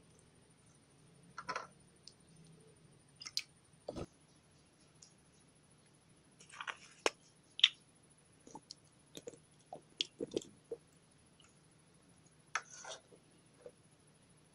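Putty slime being mixed and squeezed by hand, giving irregular sticky clicks and short squishes, several in quick succession about halfway through.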